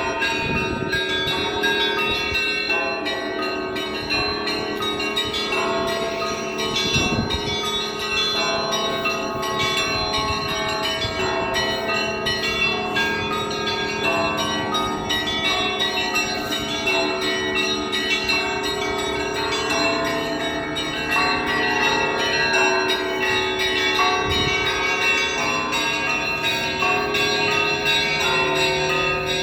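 Russian Orthodox church bells ringing in a continuous, dense peal. Many bells of different pitches are struck over one another, with high chiming bells above a deep, sustained bell hum.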